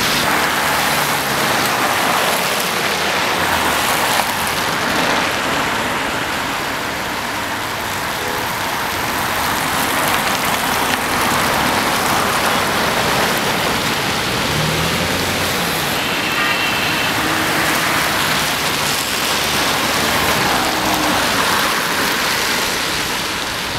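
Steady road traffic: a constant hiss of tyres with the low hum of passing engines rising and falling. There is a short high tone about two-thirds of the way through.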